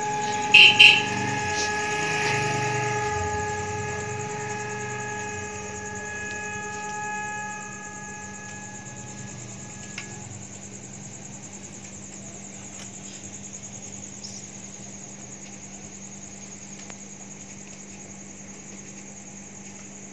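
An iftar siren holding a steady tone and fading out over about ten seconds, signalling the time to break the Ramadan fast. Two sharp clicks sound about a second in.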